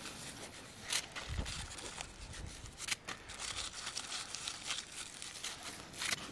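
Clear plastic bag crinkling and rustling as it is handled and emptied over a metal bowl, in a dense run of irregular crackles with a few sharper snaps.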